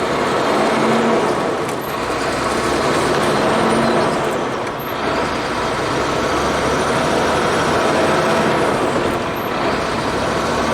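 Sterling Acterra dump truck's diesel engine and road noise heard from inside the cab while driving, the engine still warming up.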